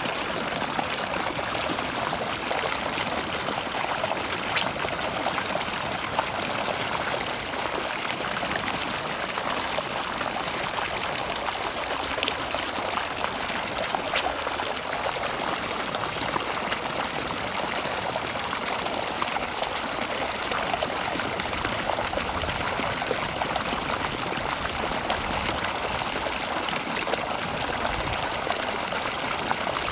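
Steady running water, like a stream or an inflow pouring into a pond.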